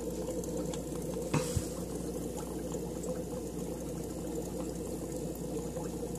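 Water in a fish tank bubbling steadily over a low hum, with a brief knock about a second and a half in.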